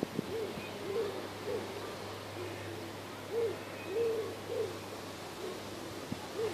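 Low hooting calls, in phrases of three short notes about half a second apart, repeated a few times.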